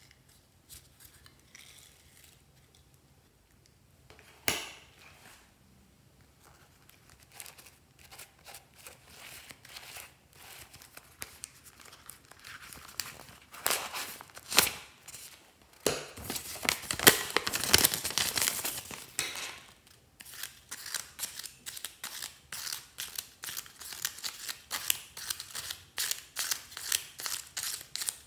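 Paper handling: one sharp click early, then paper crinkling and a sheet torn out of a spiral notebook about halfway through, followed by scissors snipping through paper in rapid repeated cuts.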